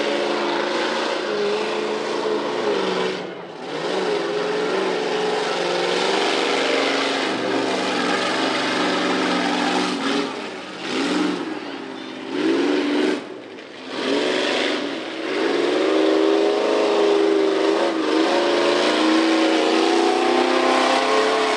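Tough-truck competition truck's engine revving, its pitch rising and falling as the throttle is opened and lifted again. It drops away briefly a few times, about three seconds in and several times around eleven to fourteen seconds.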